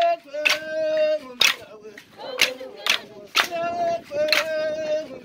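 A group of voices singing a chant in long held notes, with sharp percussive strikes keeping an uneven beat about every half second to a second.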